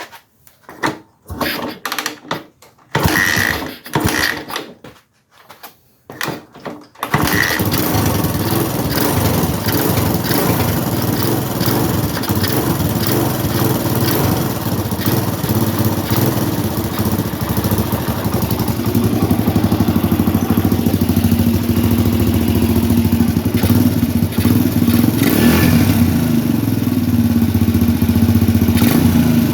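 Kawasaki KLX dirt bike's single-cylinder four-stroke engine: a few short starting attempts, then it catches about seven seconds in and runs steadily, its speed rising and falling a little later on. The owner suspects this engine has a leaking head gasket.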